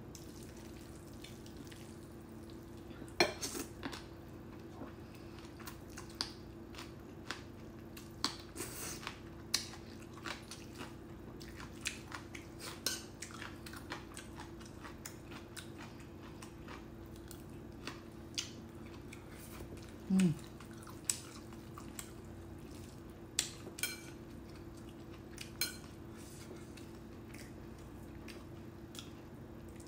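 Metal chopsticks clinking and scraping against a ceramic bowl as black bean noodles are stirred and picked up, in scattered light clicks. A steady faint low hum runs underneath.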